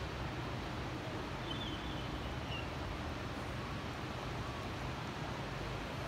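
Steady rain hiss over a low, even rumble of distant city traffic.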